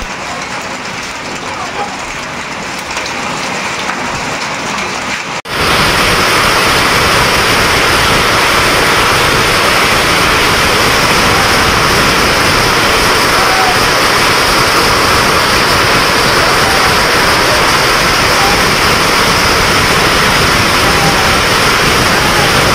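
Heavy rain mixed with hail pelting down as a dense, steady hiss. About five seconds in, it cuts to a much louder, heavier downpour that holds steady.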